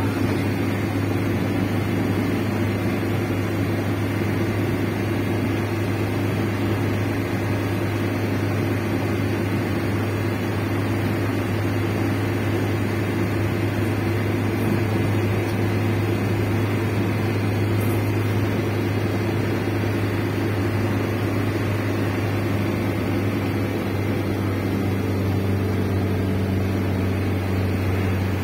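Steady low drone of a vehicle's engine and tyres heard from inside the cabin while cruising at highway speed.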